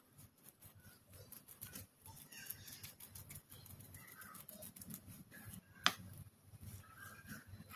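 Faint bird calls in the background, short and repeated, with a single sharp click about six seconds in.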